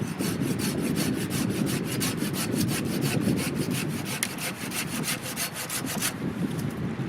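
Hand saw cutting through wood in quick, even back-and-forth strokes, which stop about six seconds in.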